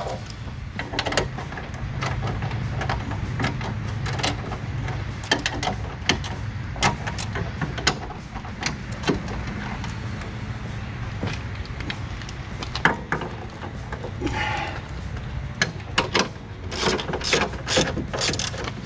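Hand socket ratchet clicking as it works a bolt on a steel tailgate reinforcement bracket, in scattered short strokes at first, then in a faster, louder run of clicks near the end. A steady low hum runs underneath.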